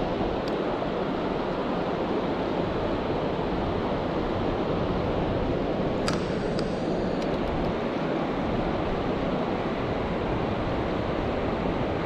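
River water rushing steadily over rocks, with a few light clicks around the middle.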